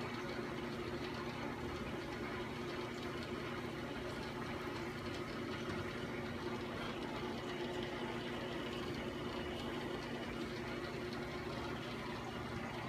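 Aquarium pump and water running steadily: a constant low motor hum under a bubbling, trickling water wash.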